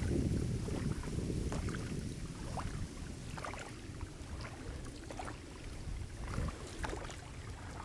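Wind rumbling on the microphone over faint small splashes of oars dipping as an inflatable rubber boat is rowed across calm water. The rumble is strongest in the first couple of seconds and then eases.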